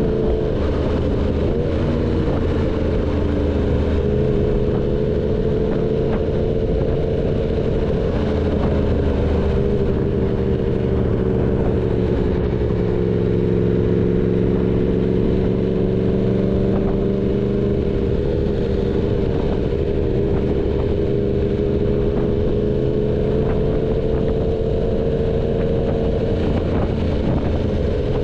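Yamaha MT-10's crossplane inline-four engine running through an SC Project full-system exhaust at fairly steady revs. The pitch sags slightly around the middle and then climbs back.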